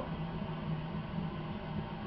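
Steady hiss with a low hum from an air-conditioning air handler whose ECM blower motor is not turning: refrigerant moving through the system with no fan running, the sign of a failed blower motor.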